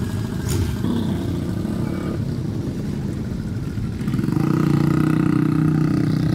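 Motorcycle exhausts running as bikes ride off slowly one after another: a steady low engine note that grows louder from about four seconds in.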